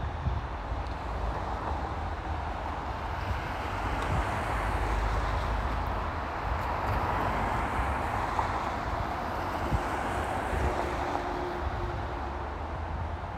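Road traffic noise with wind buffeting the microphone, a steady rush that swells and fades again in the middle.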